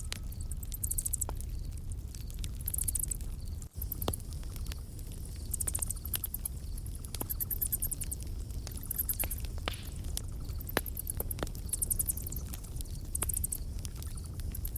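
Campfire crackling: irregular sharp pops and snaps over a steady low rumble. A high, buzzy chirping recurs every second or two alongside it.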